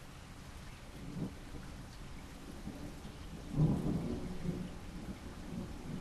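Steady rain with thunder: a short low rumble about a second in, then a louder rolling rumble from about three and a half seconds in that fades over the next two seconds.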